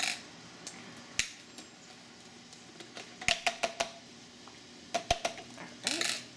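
Plastic clicks and knocks from Medela breast-pump bottles being unscrewed from their pump connectors and set down on a stone countertop, including a quick run of small clicks a little past halfway through. A short plastic rustle near the end as the milk storage bag is handled.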